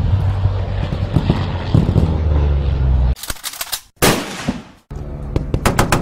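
Gunfire sound effects: a low steady drone, cut off about three seconds in by a quick burst of rapid shots, then a louder blast that trails off for most of a second, and the drone again with a few more shots near the end.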